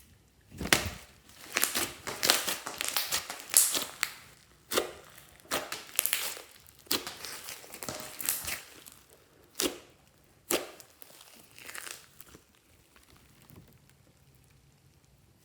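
Slime being squished and mixed by hand: irregular clusters of crackles and sharp pops, dying away about twelve seconds in.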